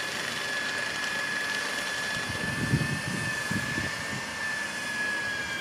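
Steady construction-site machine noise with a constant high-pitched whine, and a few low, irregular knocks or rumbles in the middle.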